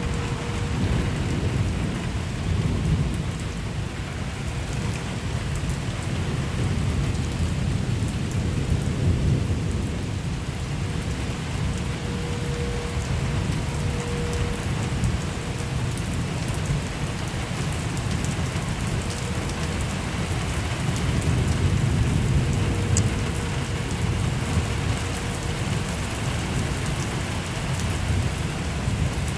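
Steady rain in a thunderstorm, with wind and a low rumble that swells louder a couple of times.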